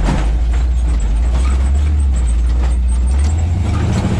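Old truck's engine running under load while driving over rough ground, heard from inside the cab as a loud, deep drone, with scattered knocks and rattles. The engine note shifts about three seconds in.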